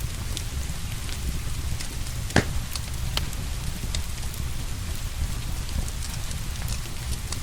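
Wood fire crackling with scattered small pops and one louder pop about two and a half seconds in, over steady rain.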